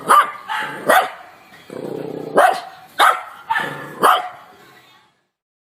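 Dog barking, about six barks spaced half a second to a second apart.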